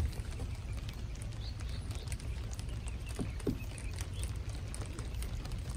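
Wind rumbling on the microphone, with scattered faint ticks and a sharp thump right at the start.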